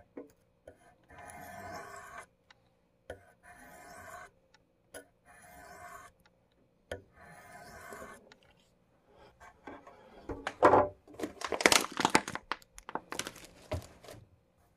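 Knife blade drawn across a wet whetstone on an AccuSharp tri-stone sharpener in four strokes of about a second each, a light scraping hiss. Near the end comes a louder, irregular flurry of rubbing and knocks.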